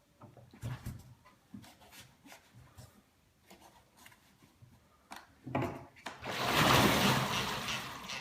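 Light, irregular rattling clicks from a loose sensor disc. About five and a half seconds in, a much louder steady rushing noise with a low hum starts and drowns them out.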